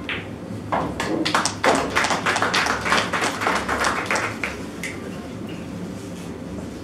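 A quick, irregular run of sharp taps lasting about four seconds, starting just under a second in.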